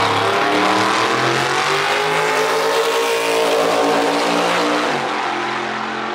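No-prep drag race car running a full-throttle pass, its engine note climbing and bending as it accelerates, then easing off a little near the end as the car pulls away down the track.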